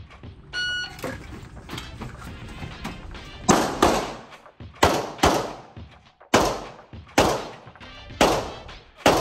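A shot timer gives one short beep about half a second in. About three seconds later a Beretta 92FS 9mm pistol fires eight shots, the first four in two quick pairs and the rest about a second apart, each shot echoing in the indoor range.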